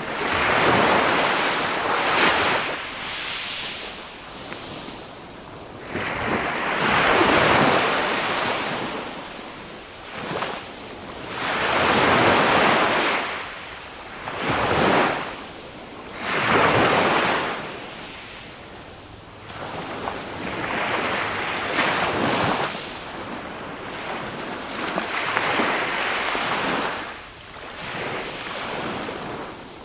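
Small waves of a calm sea breaking and washing up the shore, swelling and fading about every four to five seconds.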